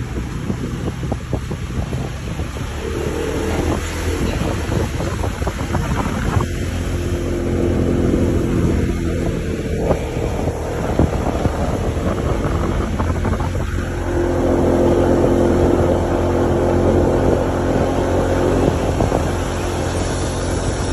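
Vehicle engine running under way, with wind buffeting the microphone; the engine grows louder about a third of the way in and again just past halfway.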